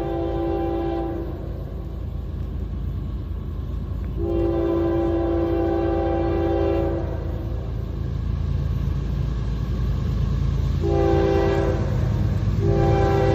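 Approaching CSX freight locomotive sounding its multi-note air horn in repeated blasts: one ending about a second in, a long one in the middle, and two shorter ones near the end. This is the warning for the road crossing ahead, over the low rumble of the oncoming train.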